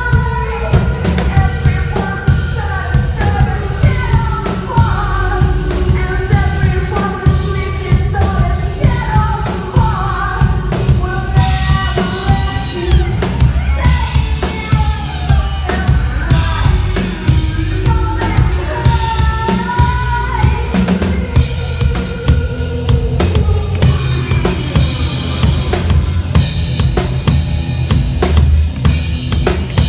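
Live band playing: a drum kit keeps a steady beat of bass drum and snare under a bending melodic line.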